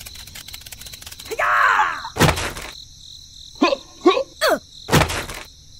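Cartoon soundtrack for a stop-motion figure animation: squeaky, sped-up character chirps and a gliding squeal over a steady background of crickets, broken by two short noisy whoosh-like bursts, the first about two seconds in and the second near the end.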